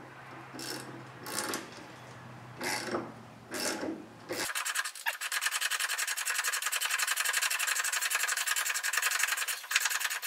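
Hand work on the mower's drive shaft: a few short metal scrapes, then from about four seconds in a steady, fast rasping rub.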